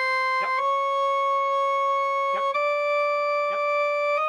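Pipes of a 1970 Wicks pipe organ sounding one steady note at a time, stepping up a semitone to the next pipe about every two seconds while the pipes are tuned. A few light taps of the tuning tool on the pipes' tuning sleeves come just before the changes of note.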